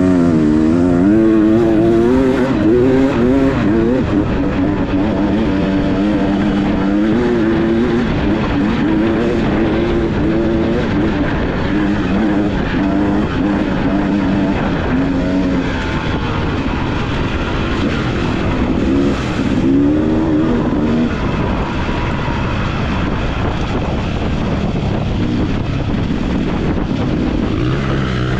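Off-road motorcycle engine running as it is ridden along a dirt road, its note rising and falling with the throttle over a steady low rumble. The note swings most in the first few seconds, holds steadier through the middle, and climbs and drops again about twenty seconds in.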